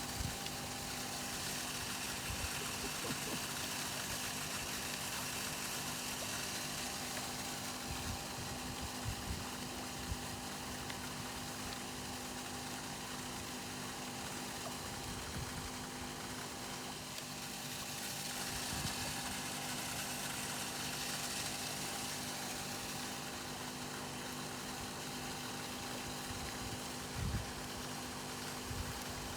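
Steady motor hum with a constant tone over even noise, with a few brief low thumps, the clearest near the end.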